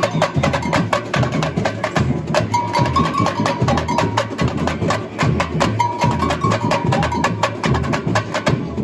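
Samba school bateria (drum section) playing a fast samba beat: deep bass drums pounding under dense snare and high percussion strikes, with a high held tone coming in and out above it.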